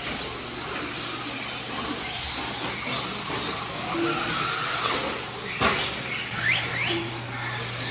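Electric motors of radio-controlled race trucks and buggies whining as they race around a dirt track, rising and falling in pitch as they speed up and slow down, with a sharp clack about five and a half seconds in.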